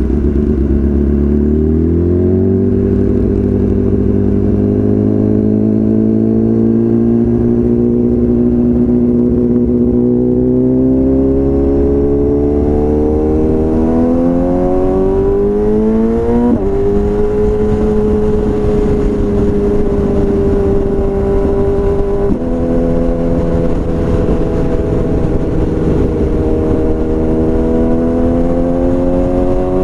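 BMW S1000RR's inline-four engine through a full Akrapovič exhaust, pulling with a slowly rising note. About 16 s in the pitch drops sharply at a gear change, it steps again about 22 s in, and then it climbs once more.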